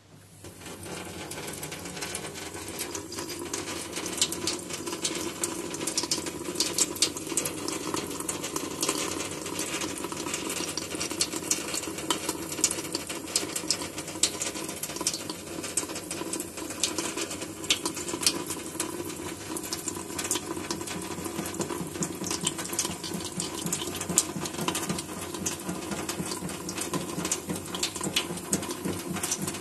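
Thin stream of water running from a kitchen tap into a stainless steel sink, coming on in the first second, with a cat lapping at the stream in many rapid little clicks and splashes.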